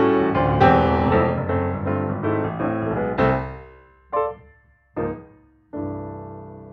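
Background piano music: a busy run of notes, then two short isolated notes and a final chord near the end that rings and slowly fades.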